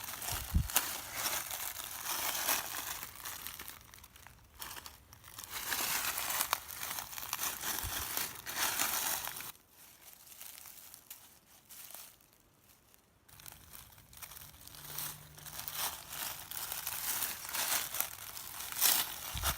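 Footsteps crunching through dry fallen leaves, an irregular crackle and rustle with each step, pausing for a few seconds about halfway through.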